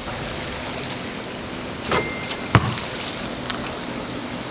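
Steady rush of water from a backyard pool's rock waterfall, with a couple of sharp thuds about two seconds in from a basketball bouncing on the sport court.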